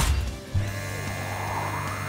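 Cartoon background music with a sudden clunk at the start, then a low steady mechanical hum from about half a second in: sound effects for a crane hoisting a freight container.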